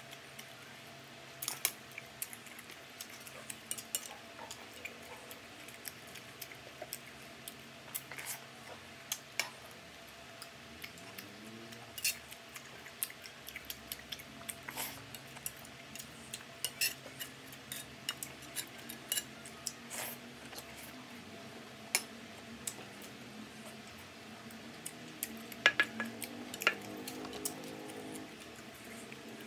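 Irregular sharp clicks and clinks of cutlery against a plate during a meal, a few to several each second, with the loudest cluster near the end.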